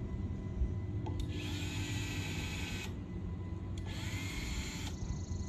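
Handheld power drill running into the wooden pergola timber in two bursts, the first about a second and a half long and the second about a second long. Each burst spins up with a rising whine.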